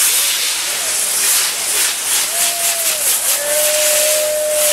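Maltese ground fireworks (nar tal-art) firing on a wheel frame: sparks spray with a loud, steady hiss and light crackling. About halfway through a high whistle joins in, first bending in pitch, then held steady.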